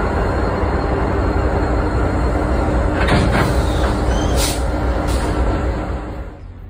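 WRA-class diesel freight locomotives passing close, engines running with a steady low hum and rail noise, with a few brief sharp metallic high-pitched sounds about three to five seconds in. The sound drops off sharply near the end.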